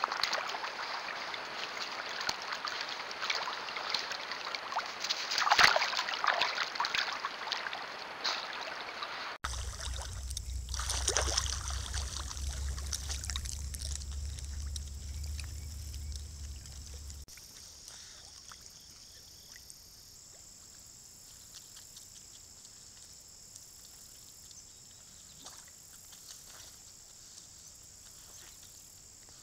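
River otters splashing and moving through shallow river water, with one louder splash about five and a half seconds in. After about nine seconds the splashing gives way to a quieter stretch: a low rumble that stops about seventeen seconds in, then only faint water and a thin, steady high hiss.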